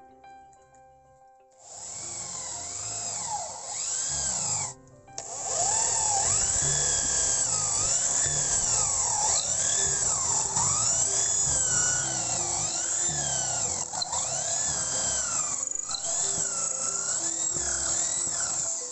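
Corded electric drill boring into a block of wood, its motor whine rising and falling in pitch as the bit bites and eases. It starts about a second and a half in, stops briefly around five seconds, then runs on.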